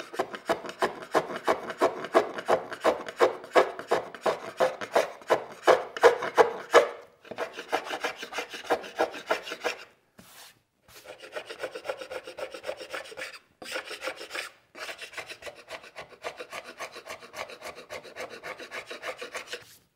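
Carbide scraper with a wooden handle scraping hardened hide-glue and sawdust filler off a walnut board flush with the surface, in quick back-and-forth strokes, several a second. The strokes are loudest in the first third and stop briefly a few times later on.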